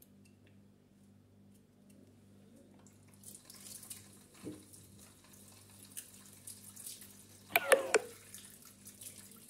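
Kitchen tap running into the sink, starting about three seconds in, with a few small knife clicks from trimming cucumbers. Near the end comes a brief, loud squeak.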